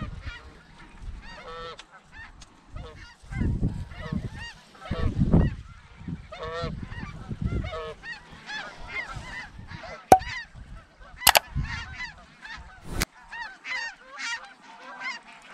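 A flock of snow geese calling as it comes in, many overlapping high honks and yelps, with gusts of wind buffeting the microphone. Three sharp clicks come in the second half.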